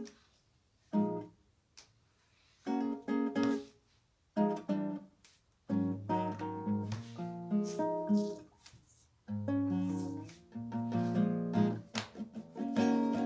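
Background acoustic guitar music, strummed and plucked in short phrases with brief pauses between them.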